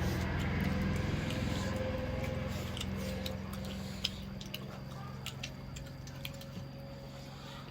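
Close-up eating sounds of a person chewing, with many small wet mouth clicks and smacks. Under them runs a steady low hum that slowly fades.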